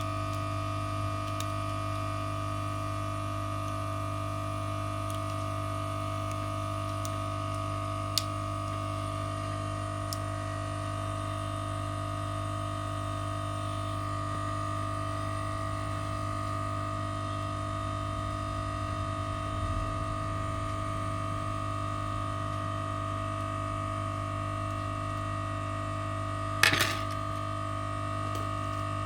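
Steady electrical hum from repair-bench equipment, made of several fixed tones, with a few small clicks and a short clatter of parts or tools near the end.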